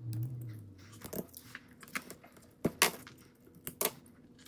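Scattered small clicks, taps and rattles from hands handling an e-bike battery pack's balance-lead wires and connectors and picking up small hand tools. The sharpest click comes a little past halfway.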